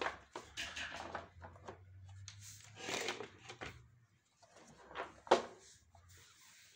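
Plastic housing of a Samsung vacuum cleaner being handled and shifted on a wooden floor: scattered knocks, clicks and scraping, with one sharp knock about five seconds in.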